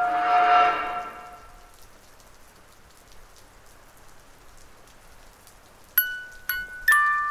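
Horror film score: a sustained, many-toned chord fades out over the first second and a half, leaving only a faint crackling hiss. About six seconds in, high bell-like chime notes are struck three times, each ringing on.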